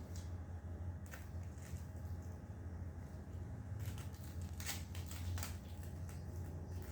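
A few short clicks and rustles of small objects being handled, spread out with gaps of a second or more, over a steady low hum.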